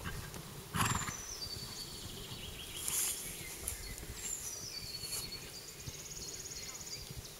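Wild birds singing: a high song that steps downward in pitch, heard twice, and a fast trill near the end. Under it run the soft thuds of a horse's hooves on the sand arena, with one loud thump about a second in.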